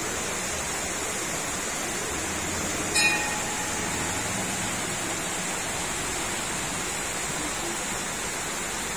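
Steady rush of flowing water, as from a stream or waterfall in a canyon. A brief sharp sound cuts in about three seconds in.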